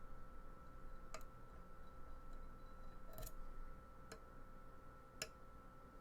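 A lock pick clicking against the pins of a pin-tumbler challenge lock: four faint, sparse clicks a second or so apart.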